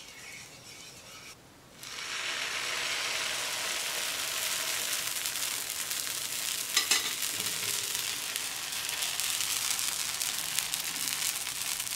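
Semolina and potato batter sizzling in a hot oiled non-stick frying pan, a steady hiss that starts about two seconds in. A few short clicks about seven seconds in.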